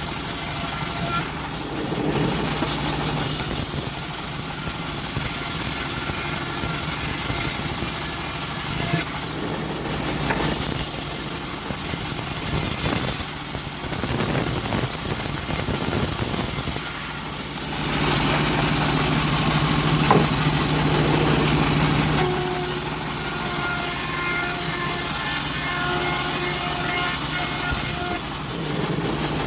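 Engine-driven homemade bandsaw mill running and sawing teak: a steady, loud mechanical drone whose low hum rises and falls several times as the load changes.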